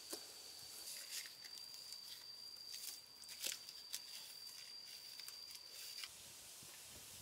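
Faint crackling and scraping of dry bark strips being pushed into gaps between log walls, with a few sharp clicks, over a steady high insect drone that stops about six seconds in.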